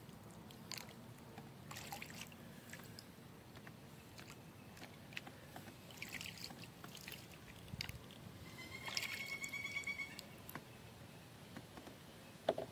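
Water dripping and trickling off a kayak paddle, with small splashes as it dips into still creek water. About nine seconds in there is a short buzzy pitched sound, and a sharp knock near the end is the loudest thing heard.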